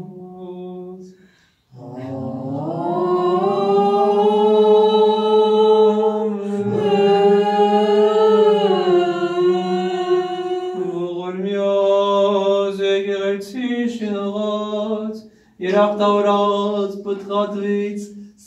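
Armenian church chant: one voice holds a steady low drone note while another sings a slow melody above it in long, gliding notes. It breaks off briefly about a second and a half in and again near the end.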